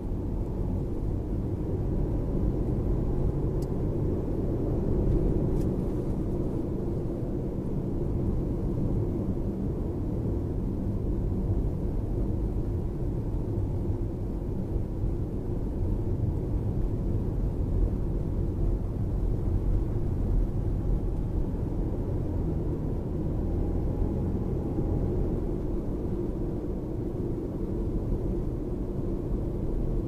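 Steady low road and tyre rumble inside the cabin of a Lexus RX 450h cruising at speed.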